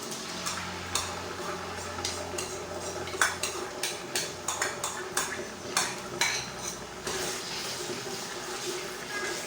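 Metal utensils clinking and scraping against pots and dishes while food is stirred and handled, a run of sharp knocks that is densest in the middle, over a steady low hum.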